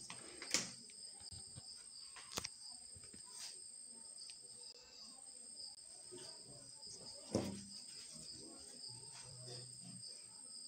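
Faint, steady high-pitched trilling of crickets, with a few short clicks and knocks from handling, the loudest about two-thirds of the way through.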